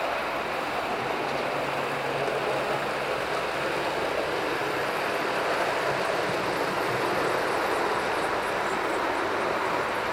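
Model railway train running along the track: a steady rolling rumble of the coaches' wheels on the rails.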